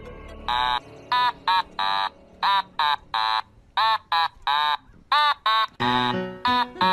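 Siberian husky giving a rapid run of short, high, yelping calls, each rising and falling in pitch, about two to three a second. Music comes in under them near the end.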